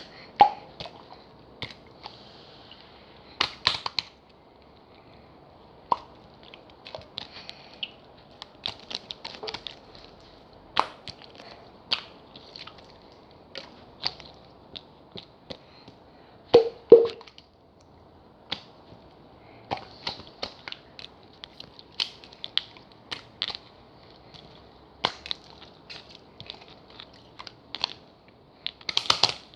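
Jelly slime being kneaded and pressed by hand, making irregular clicks and small pops as air pockets burst, with louder pops about 4 seconds in, around 17 seconds and near the end.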